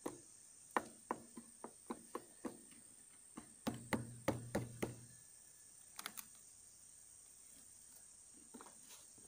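A series of short, sharp knocks, irregularly spaced: a run of single knocks about three a second, then a denser cluster, then a couple more and a few faint ones near the end.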